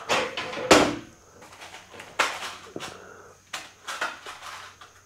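Several short clattering knocks and rattles of metal and tools being handled while a corrugated metal wall panel is fixed up, the loudest about a second in.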